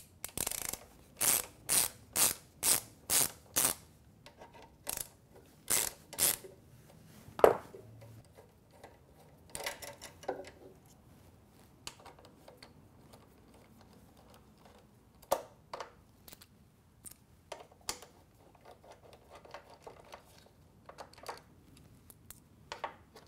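Hand ratchet clicking in quick strokes, about two a second for the first few seconds, as the bolts holding a motorcycle's rear brake master cylinder are backed out; then scattered clicks and light metal taps, with one louder click about seven seconds in.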